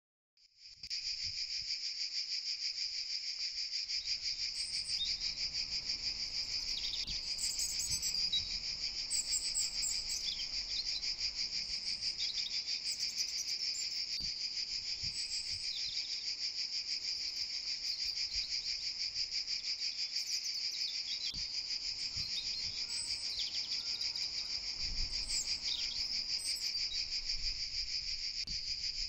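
A dense, steady chorus of chirping insects in high summer vegetation, starting about half a second in, with short higher chirps breaking over it now and then.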